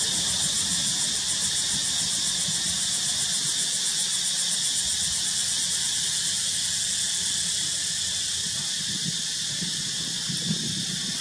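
A steady, high-pitched chorus of buzzing insects with a fast fluttering pulse in it.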